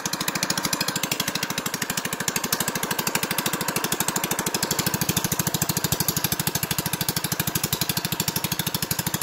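Small gasoline engine running steadily with a fast, even beat. It drives a small centrifugal water pump head ('đầu bò') that is pumping water out of a ditch.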